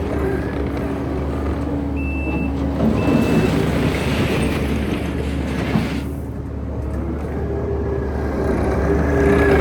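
Kubota SVL95-2s compact track loader's diesel engine running as the machine is worked, with two short backup-alarm beeps about two and three seconds in. The engine's pitch and level swell near the end.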